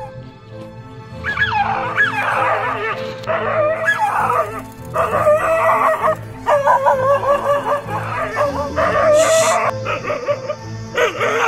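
A dog barking and yowling defensively at a leopard in long, wavering calls that start about a second in, over background music with a steady beat.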